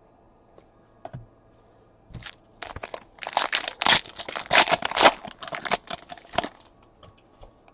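A foil trading-card pack wrapper being torn open and crinkled in the hands: a few light handling clicks, then a crackling run of ripping and crumpling that starts about two seconds in and lasts about four seconds.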